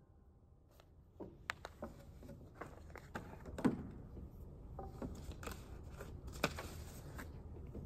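Quiet small room after the piano stops, with scattered faint clicks, taps and rustles of a person moving at the piano; the sharpest taps come a little before the middle and again near the end.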